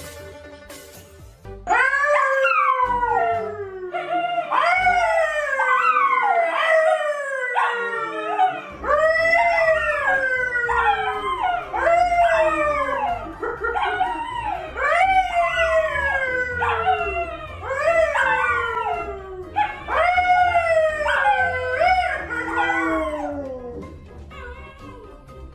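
A man and two dogs, a curly brown poodle and a yellow Labrador, howling together: a long run of overlapping howls, each sliding down in pitch. It starts about two seconds in and dies away near the end.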